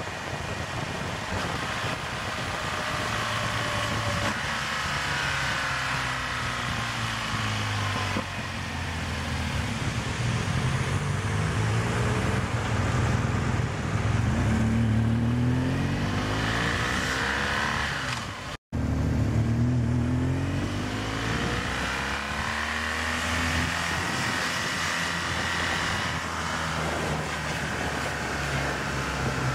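Motorcycle engine running on the move with wind rush, its pitch rising and falling as the throttle opens and closes. The sound cuts out for an instant about two-thirds of the way through.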